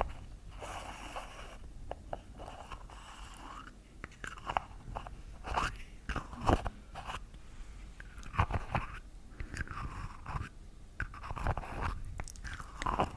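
Irregular crunching and crackling close to the microphone, a string of sharp crunches spaced unevenly through the stretch.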